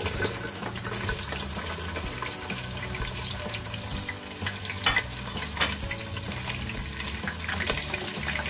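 Sliced onions sizzling in hot oil in a pot, just tipped in, with many small pops and crackles over a steady hiss.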